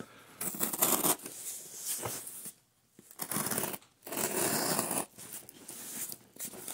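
A blade slicing and scraping through thick cardboard in a series of rough strokes about a second long, with short pauses between them.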